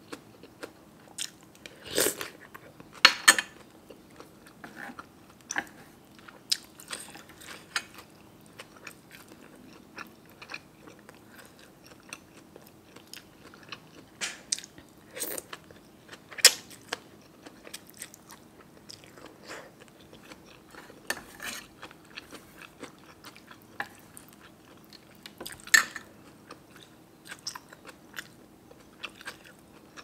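Close-miked chewing and crunching of food, with many short sharp clicks and a few louder bites scattered through.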